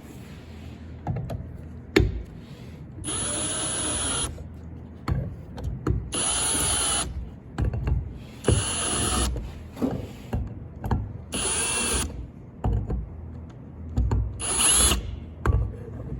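Power drill driving screws into the pump head, in five short runs of about a second each. Some runs rise in pitch, and there are clicks and handling noises between them.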